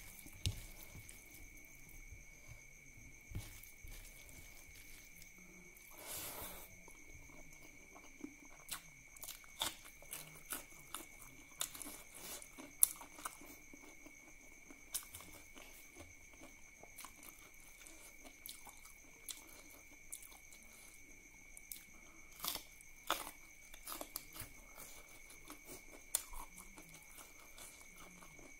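Close-miked eating sounds: chewing and wet smacks and clicks from a mouthful of duck curry and rice eaten by hand, with a few sharper crunchy clicks. A faint steady high tone sits underneath.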